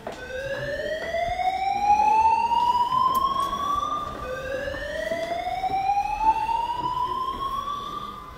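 A building's slow-whoop alarm sounding: a tone rising from low to high over about four seconds, then dropping back and rising again, about twice in all.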